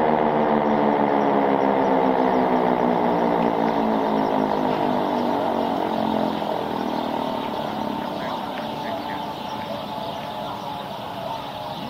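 Sentry 16V1T-B electromechanical outdoor warning siren winding down after a short test: its tone slides slowly lower and fades over several seconds.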